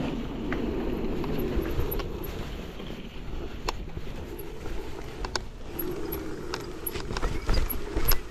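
Mountain bike riding along a trail: a steady rumble of tyres and wind on the microphone, with scattered clicks and knocks from the bike.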